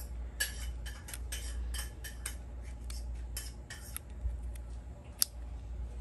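Small plastic-and-metal clicks and scrapes of a SIM card being pushed into the SIM slot on the back of a Nokia 106 phone, a dozen or so quick ticks, then one sharper click about five seconds in.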